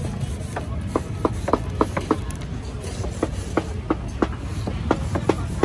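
A rapid, irregular series of sharp knocks, about three a second, over a steady low background rumble.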